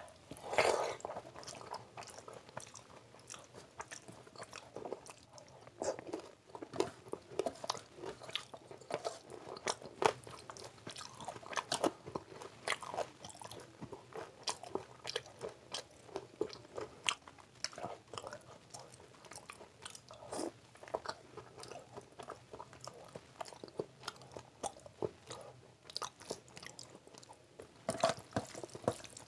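Close-miked chewing and wet mouth sounds of a man eating rice and curry with his hand, with irregular smacks and clicks throughout.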